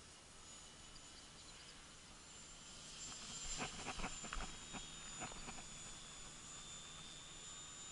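Faint high whine of the electric-powered Art-Tech Texan T6 RC plane flying overhead, growing louder about halfway through, with a cluster of short knocks around the middle.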